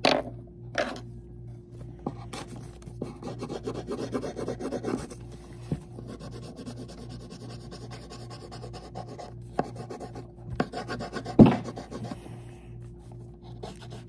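Coloured pencil scratching rapidly back and forth on paper as it is shaded in, heaviest a few seconds in. A few sharp knocks come through, the loudest late on.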